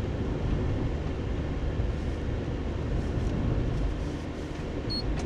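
Steady road noise heard inside a car's cabin at about 47 km/h: tyres on asphalt and the engine make a low, even rumble. A brief high beep sounds near the end.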